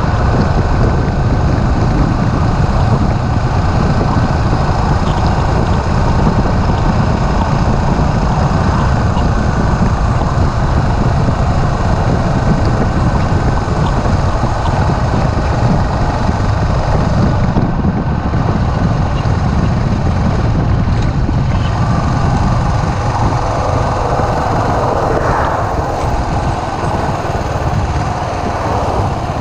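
Suzuki S40's single-cylinder engine running steadily at road speed, mixed with wind rush on the microphone. Near the end the sound eases a little as the bike slows.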